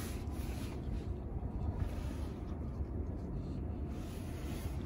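Steady low background rumble with no distinct sounds.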